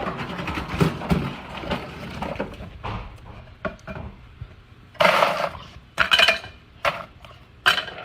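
Household items clattering and rustling as a dog rummages through a trash can, with a run of sharp knocks and clinks from about five seconds in.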